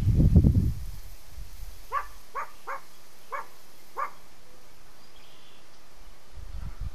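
Five short, sharp calls from a distant animal, spread over about two seconds near the middle. A loud low rumble on the microphone comes in the first second.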